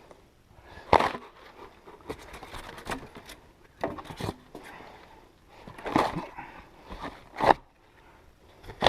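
Handling noises from a rooftop tent and its packaging being shifted: irregular knocks, bumps and scrapes, a handful of them louder, spread a second or two apart.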